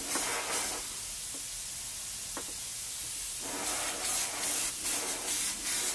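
Iwata airbrush spraying paint in short hissing bursts: one brief spray at the start, a pause, then quick repeated spurts about three a second from about three and a half seconds in.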